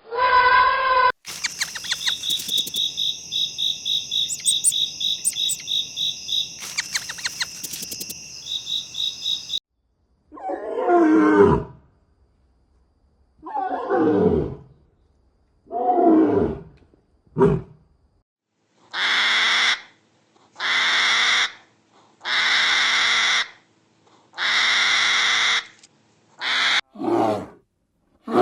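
A run of animal calls: a fast, high pulsing trill for about eight seconds, then four deep roar-like calls that each fall in pitch, then a series of rough, hissing bursts about every two seconds.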